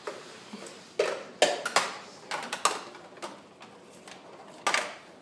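Plastic balls clattering down a plastic ball-drop ramp toy: a quick run of sharp clicks and knocks a second or so in, and one more knock near the end.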